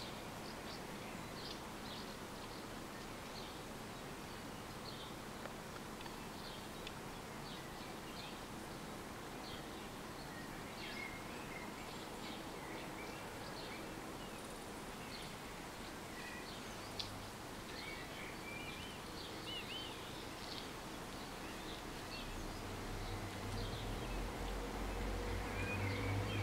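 Birds chirping and singing over quiet outdoor ambience. In the last few seconds a low rumble grows steadily louder.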